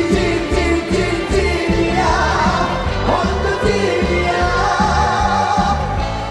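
Live trot song played over a concert PA: a steady dance beat under melody lines, with singing.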